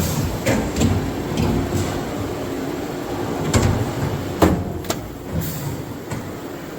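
Magazine bar feeder cycling on a CNC Swiss lathe: a low sliding rumble broken by sharp mechanical clunks, one right at the start and several more through the middle.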